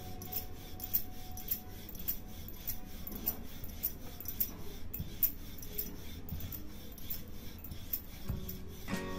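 Wooden rolling pin rolled back and forth with light strokes over a stuffed flatbread of dough on a wooden rolling board: a soft, repeated rubbing rasp of wood on floured dough and board.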